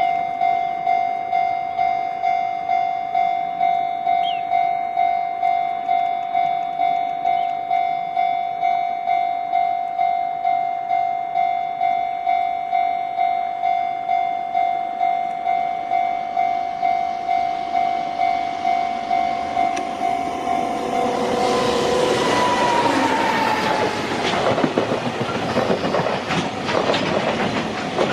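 A Japanese level-crossing warning bell ringing in a steady, even string of dings, about one and a half a second. About 21 seconds in, a fully loaded JR Freight container train hauled by an EF210 electric locomotive passes at speed, and its rattling wheel clatter and rail knocks drown out the bell.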